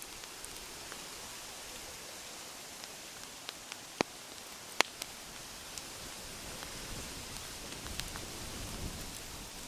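Wood campfire crackling: a steady hiss with scattered sharp pops, two loud ones about four and five seconds in.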